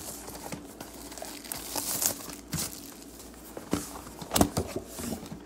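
Plastic wrapping on a box of trading-card packs crinkling and rustling as it is handled, with several sharp taps, the loudest a little after four seconds in.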